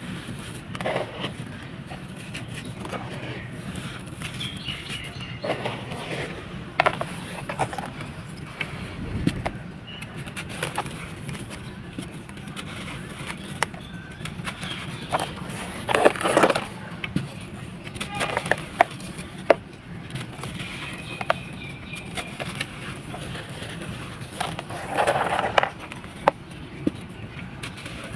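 Dry sand-cement balls being crushed and crumbled in a tub: irregular gritty crunching and crackling with scattered sharp clicks, and a few louder crumbling bursts, one about halfway through and another near the end.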